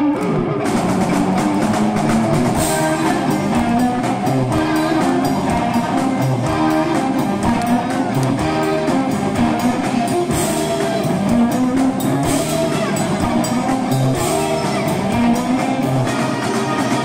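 Live rock band playing an instrumental passage: electric guitar over a drum kit, loud and continuous.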